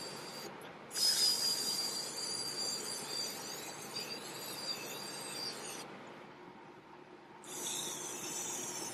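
Powder coating gun spraying: a steady high hiss of air and powder with a thin high tone. It breaks off briefly about half a second in, stops again around six seconds in and starts again about a second and a half later.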